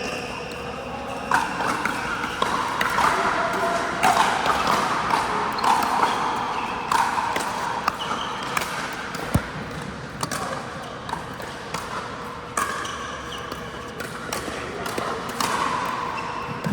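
Pickleball paddles striking the hollow plastic ball in a large indoor hall: irregular sharp pops, many in quick succession. People's voices are heard underneath.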